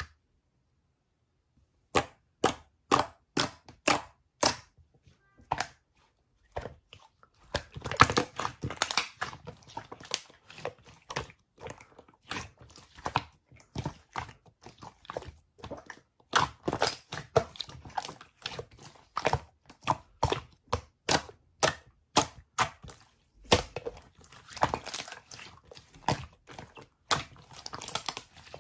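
A series of sharp clicks and taps from objects being handled close to the microphone. About six come evenly spaced near the start, then they grow dense and irregular, mixed with light rustling.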